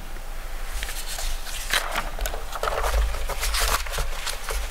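Rustling, scraping and low thuds close to a lectern microphone, loudest about halfway through.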